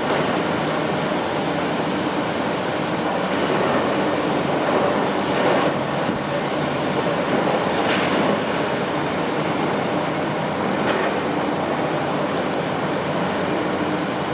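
Heavy construction machinery running steadily with a rumbling, grinding mechanical noise, broken by a few sharp metallic clanks.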